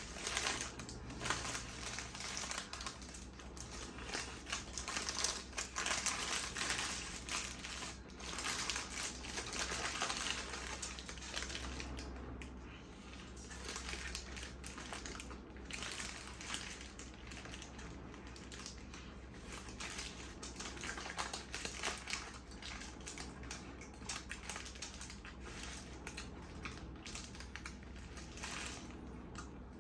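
Close-miked eating of a burger: irregular crunching and wet chewing clicks, with some crinkling of the wrapper, busier in the first half.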